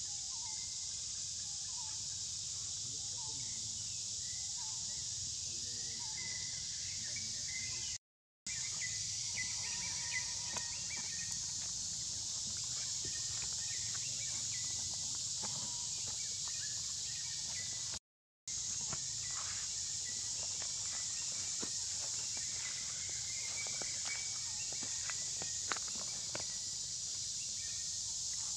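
Steady high-pitched insect chorus, with faint scattered rustles and clicks of a baby macaque's feet in dry leaf litter. The sound cuts out twice for about half a second.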